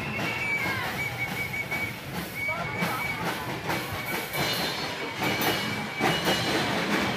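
Marching percussion band of drums and wooden xylophones playing a rhythm, with a short high note repeated in the first few seconds and sharper, stronger hits in the second half.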